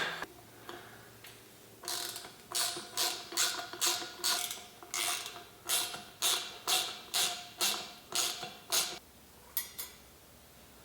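Ratchet wrench being cranked in short back-and-forth strokes, about two clicking strokes a second for some seven seconds, then stopping, with two lighter clicks near the end.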